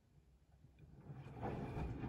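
Siemens iQ300 front-loading washing machine in the wash phase of a 40 °C easy-care cycle. It is quiet for about a second, then the drum starts turning and soapy water and laundry slosh with a low, uneven rumble that grows louder.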